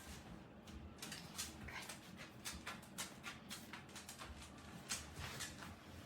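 A dog panting in quick, short, irregular breaths, starting about a second in.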